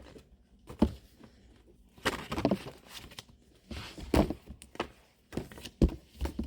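Hardcover books being handled and set down: a few dull thuds with some rustling in between.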